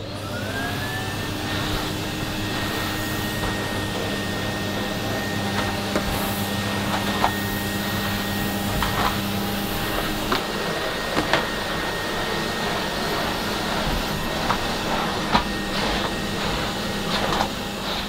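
Numatic Hetty vacuum cleaner motor on its low-power setting, spinning up with a rising whine in the first second and then running steadily. The floor head is worked over a rug, with a few faint light knocks.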